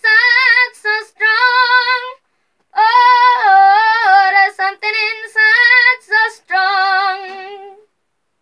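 A boy singing solo and unaccompanied in a high, clear voice: several sung phrases with short breaths between, the last long note trailing off near the end.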